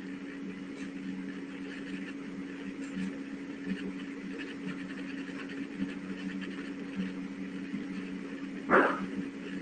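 Steady low electrical hum and hiss from an open microphone, with one short, loud sound near the end.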